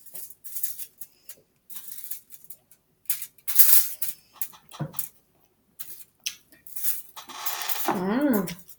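Close-up eating sounds: irregular wet chewing and mouth clicks with light utensil noises. Near the end comes a short wavering vocal sound that rises and falls in pitch.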